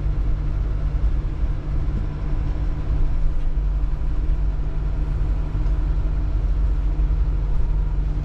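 Vehicle engine running with a steady low rumble and a constant hum, unchanging throughout.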